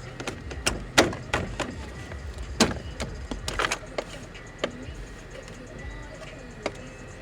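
Background music with a series of sharp clicks and knocks from plastic car door trim and tools being handled, the loudest about a second in.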